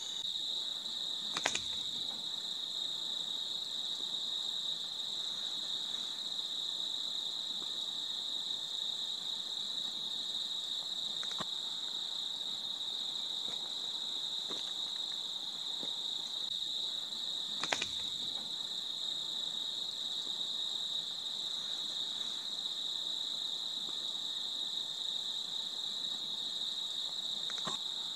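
A steady, high-pitched drone of night-singing insects, unbroken throughout. Two sharp clicks cut through it, about a second and a half in and again about two-thirds of the way through.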